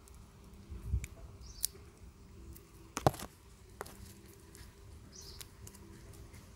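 A few sharp clicks and snaps as a small blade cuts through red plastic tape binding a bundle of trunks. The loudest snap comes about three seconds in.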